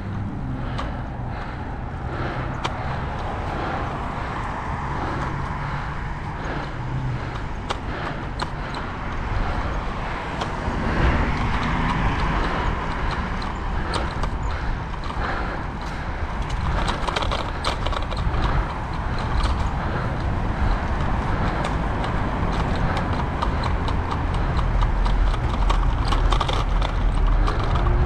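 Bicycle ridden at speed along a sidewalk: the frame rattles and clicks over bumps and pavement joints against a steady rumble of wind on the microphone, which grows heavier in the second half, with road traffic in the background.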